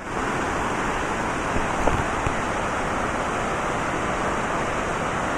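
Steady roar of rushing water, with a couple of faint knocks about two seconds in.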